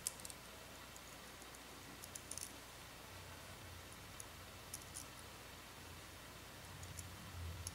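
Faint, scattered clicks of small steel M3 washers being slid onto a screw by hand, a few light ticks a second or more apart, over quiet room noise.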